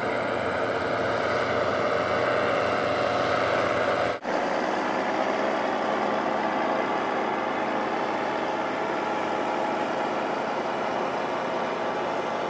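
Paramotor engines droning steadily overhead. There is a brief dropout about four seconds in, and then the drone carries on unchanged.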